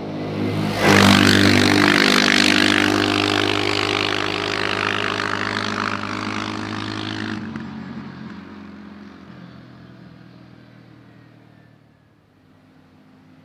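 CFMOTO CForce 520L quad's single-cylinder engine running at a steady speed. It comes up loud and close about a second in, holds, then fades away over several seconds as the ATV moves off.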